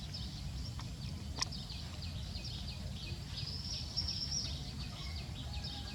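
Many small birds chirping rapidly in the background over a low, steady rumble, with a faint click about one and a half seconds in.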